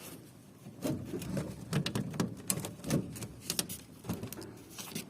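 Wartburg 353 door card being pushed and worked loose from the door by hand: a run of irregular clicks and light knocks from the panel and its clips.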